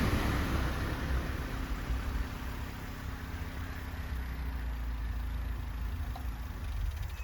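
A vehicle engine running with a steady low hum that slowly fades, dropping away just before the end.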